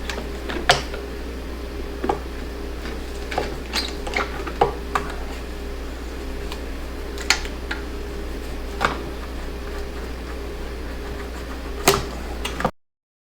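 Scattered clicks and small scrapes of hand tools and fingers on a large hose clamp and rubber intake duct at a car's throttle body as the clamp is loosened, over a steady low hum. The sound cuts off abruptly near the end.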